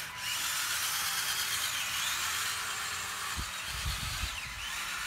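Small electric RC motor and drivetrain gears whining as a 1/18-scale tracked Snow Cat model drives, the pitch shifting as the throttle changes. A brief low rumble comes about midway.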